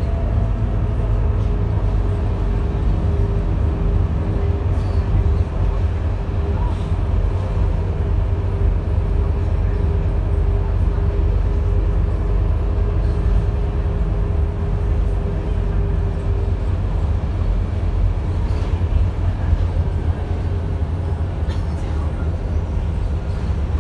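Scania K230UB city bus, with its five-cylinder diesel, heard from inside the passenger cabin while under way: a steady low engine and road rumble. A thin steady whine rides on top and stops about seventeen seconds in.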